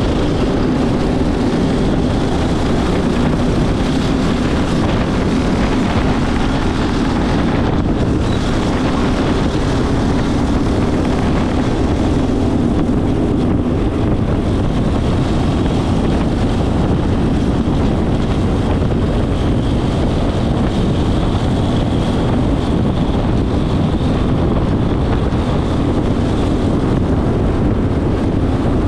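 Racing go-kart engine running hard at speed, heard onboard, with heavy wind noise on the microphone.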